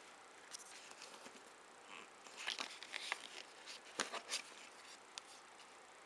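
Cardboard packaging being handled: rustling and scraping with a few sharp clicks and snaps as a card is worked out of a paper sleeve, busiest near the middle and loudest about four seconds in.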